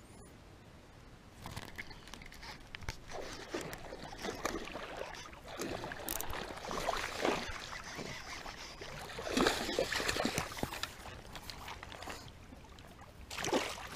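Water splashing and sloshing in irregular bursts as a hooked bass thrashes at the surface close to the bank and is pulled in. The splashes are loudest about two thirds of the way through and again just before the end.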